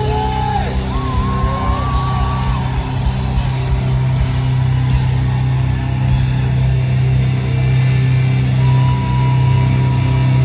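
Live hard-rock band playing loud with distorted guitars over a held low note. A high line bends up and down in pitch in the first few seconds, and another high note is held near the end.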